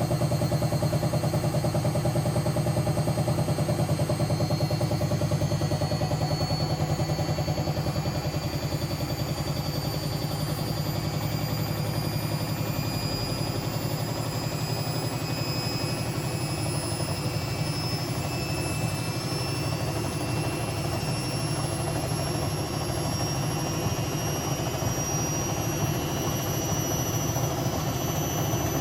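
A Hotpoint BHWMXL145 washing machine spinning up, its drum running on a snapped spider. It gives a steady heavy rumble, with a motor whine that rises slowly in pitch as the drum gathers speed.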